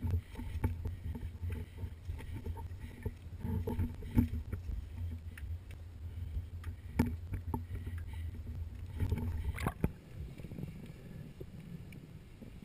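Footsteps and scuba gear knocking, irregular clicks over a low rumble, as a diver walks down a rocky shore path. About ten seconds in, after a brief louder rush, the sound turns to the quieter, even hiss of a camera underwater.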